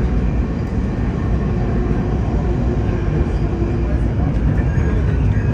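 Steady low rumble of a moving passenger train heard from inside a VIA Rail Skyline dome car: wheels and car body running on the track.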